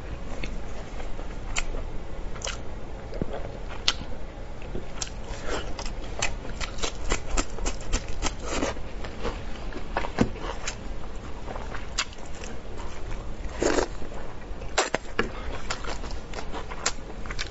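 Eating sounds of spicy pork elbow: wet chewing and lip smacking, with many short sticky clicks and crackles from plastic-gloved hands pulling the meat apart in sauce.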